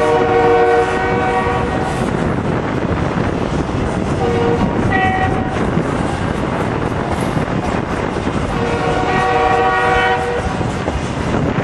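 Loaded freight cars rolling past, wheels clattering and rumbling on the rails, while the locomotive horn sounds from the head end of the train: a long blast ending about two seconds in, a short blast about five seconds in, and another long blast near the end.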